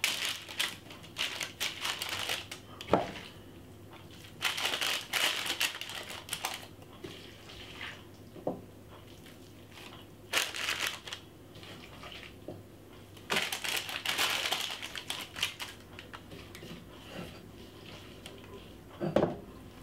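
A plastic-gloved hand handling wet marinated diced pork on a parchment-lined metal oven tray: crinkling of the baking paper and glove, with soft handling noise of the meat, in several bursts of a second or two.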